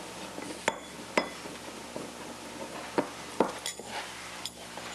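Kitchen utensils clinking and tapping against a glass mixing bowl and a baking dish: several sharp, separate clinks, over a faint steady low hum.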